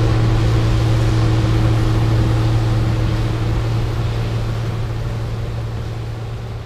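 Claas Tucano combine harvester running while harvesting wheat and unloading grain, with a tractor running alongside: a steady engine drone with a strong low hum. The sound fades out gradually over the last few seconds.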